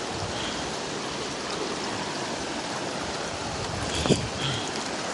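River water rushing steadily over rocks. A few short high chirps sound over it, and there is a brief knock about four seconds in.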